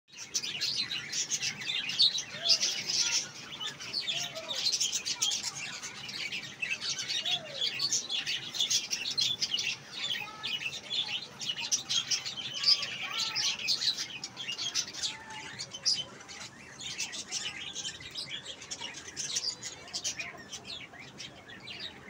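A flock of caged budgerigars chirping and chattering without a break, many short, high calls overlapping, with a few lower gliding call notes among them.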